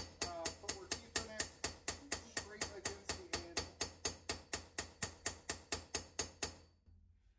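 Carbide straightening hammer tapping a hardened 64 HRC Magnacut steel knife blade, with light, rapid flick-of-the-wrist taps about five a second, each with a short metallic ring. The taps stop near the end. They peen a line across the blade to straighten a banana-shaped warp.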